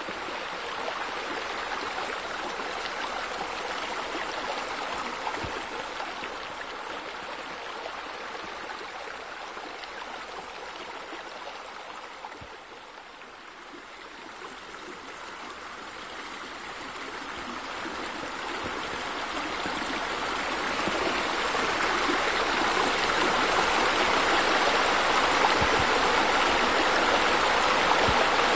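Steady rush of falling water from a pool's water features: small sheer-descent waterfalls pouring from a raised stone wall into the pool, and a spa spilling over. It fades somewhat around the middle, then swells and stays louder for the last several seconds.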